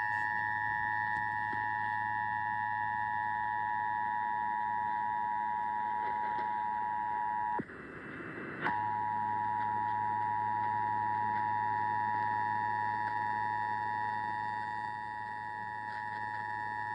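Emergency Alert System two-tone attention signal, a steady dual tone, playing through a portable AM radio's speaker during a Required Monthly Test. The tone drops out into about a second of static about eight seconds in, then resumes.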